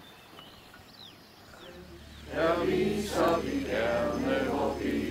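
A few faint bird chirps, then about two seconds in a small group of people starts singing together, with held notes.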